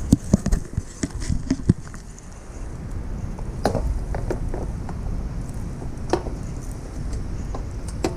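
Light clicks and knocks from handling metal bike hardware during assembly: a quick run of them in the first two seconds, then a few scattered ones, over a steady low rumble.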